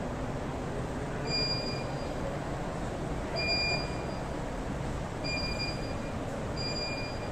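Four short, high-pitched electronic beeps, spaced about one and a half to two seconds apart, over a steady background rush of noise.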